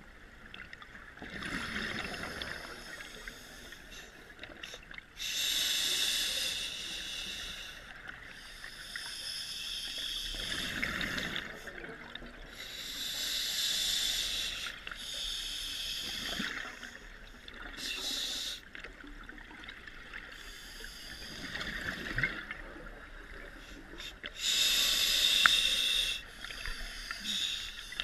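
Scuba diver breathing through a demand regulator underwater. Each inhalation is a hiss lasting a second or two, and it alternates with the gurgle of exhaled bubbles, one breath every four or five seconds.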